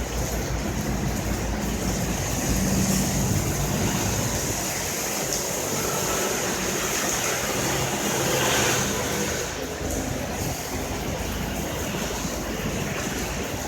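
Heavy rain falling steadily, an even hiss that swells briefly a little past the middle.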